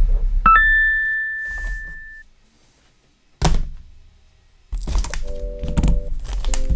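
Intro sound effects: a bright chime rings out about half a second in and fades, then a single low thunk about three and a half seconds in. Music with sustained notes starts near the end, with scattered clicks over it.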